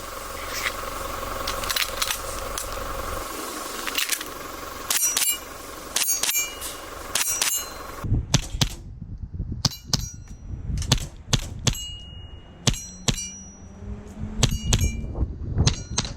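A Carbon8 Steyr L9-A2 CO2 airsoft pistol firing a string of sharp shots, many followed by a short metallic ring. A steady hum behind the shots stops about halfway through.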